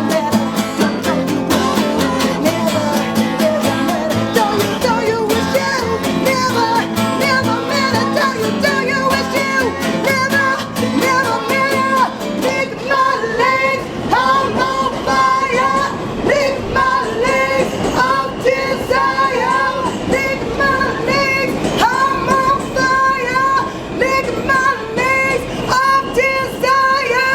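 Acoustic cover band playing: guitar and upright bass with a singing voice. About halfway through, the low bass drops away, leaving short repeated high notes.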